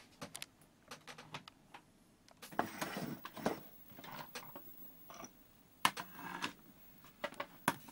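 Irregular clicks and short rustles of handling as a CRT television is connected to power and switched on. The sharpest click comes about six seconds in.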